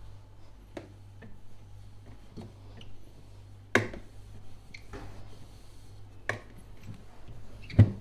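Household objects handled and set down: four sharp clicks and knocks spread over the span, the loudest near the end, over a low steady hum.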